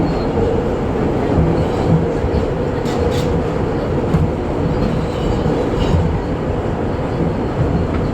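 R160 subway car running along the track, heard from inside the car with its HVAC off: a steady rumble of wheels on rail under a steady mid-pitched hum. A brief high squeal comes about 3 seconds in.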